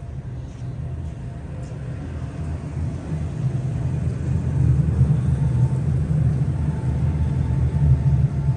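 Low rumble of a large vehicle, growing louder over several seconds as it draws closer.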